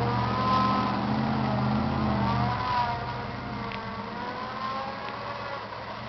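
Pickup truck engine revving as it plows through a deep puddle, its pitch rising and falling. Louder for the first two and a half seconds or so, then fading as the truck moves off.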